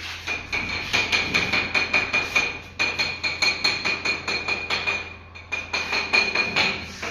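Rapid tapping on large 2×4 ft wall tiles to test for hollow spots: several sharp taps a second, each with a high ringing note, pausing briefly twice. The tiles sound solid, with no hollow ring, as tiles fixed with adhesive should.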